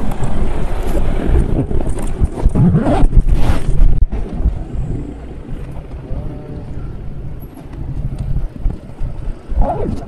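Motor vehicle noise, a dense low rumble with wind on the microphone, loudest for the first four seconds with a rising and falling sweep around three seconds in, then quieter.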